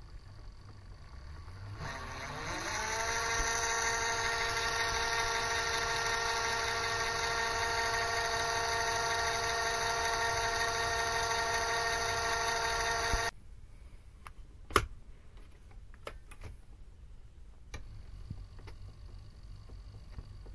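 Mini lathe's motor and spindle gear train spinning up with a rising whine, running steadily with a high, even whine, then cutting off suddenly about two-thirds of the way through. A single sharp knock and a few faint clicks follow.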